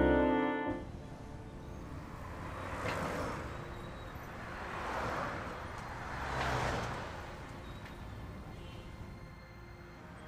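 Brass music cuts off less than a second in, giving way to busy road traffic with vehicles passing in three swells that rise and fade.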